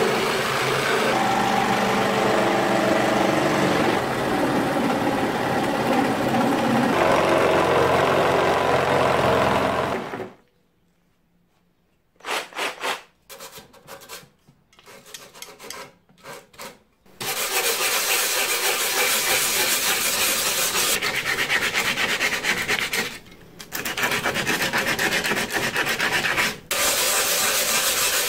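A cordless reciprocating saw runs as it cuts through a piece of wood, then stops about ten seconds in. After a short silence and a few scattered strokes, a hand sanding block rubs back and forth across a rough old wooden board in steady strokes, with a couple of brief pauses.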